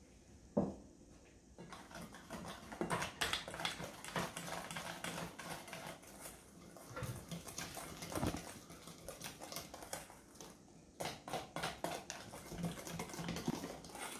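Wire whisk stirring the custard mixture in a stainless steel bowl: a quick, irregular run of light clicks and scrapes of metal on metal. A single knock about half a second in.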